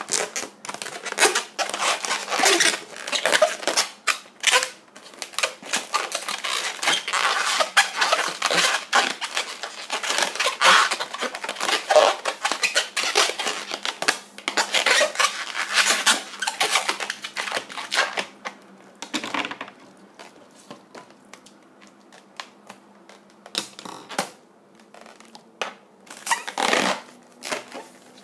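Latex modelling balloon being twisted and squeezed by hand: a dense run of rubbery squeaks and creaks. After about nineteen seconds it mostly stops, leaving a few short squeaks.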